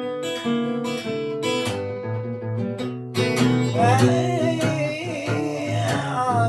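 Fingerpicked blues on an Amrita Custom Guitars F-Model flattop acoustic guitar, with a short break about three seconds in. A wordless wavering vocal line comes in over the picking in the second half.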